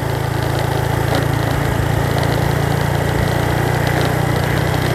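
Engine of a moving road vehicle running steadily, a low drone that grows slightly stronger about three seconds in.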